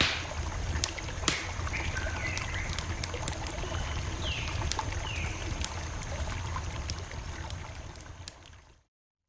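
Campfire crackling: a steady low rumble of burning wood with frequent sharp pops and snaps, and a few short falling chirps in the background. It fades out near the end into a moment of silence.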